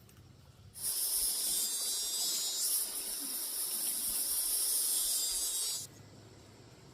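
A steady, high-pitched hiss lasting about five seconds, starting and stopping abruptly.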